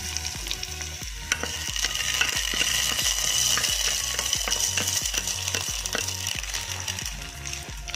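Hot-oil tempering of mustard seeds, shallots and curry leaves sizzling as it is poured into the chicken curry. The sizzle swells about a second and a half in and eases off near the end, with light scrapes of the spatula against the pan.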